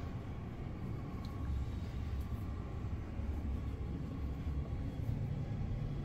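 Steady low rumble with a faint constant hum: the background noise of a room, with no distinct event.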